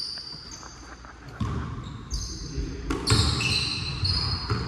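Basketball bouncing on a gym floor, with many short, high-pitched sneaker squeaks on the court.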